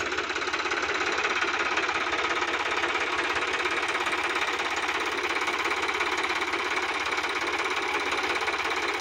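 Sonalika DI-50 RX tractor's diesel engine running steadily with a fast, even clatter.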